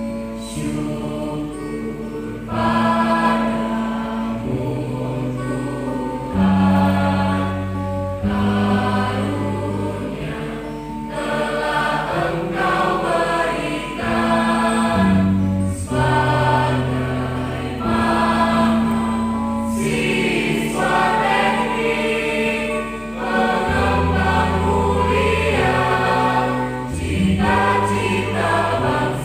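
Mixed choir of young women and men singing in several parts at once, holding long notes and moving together from chord to chord.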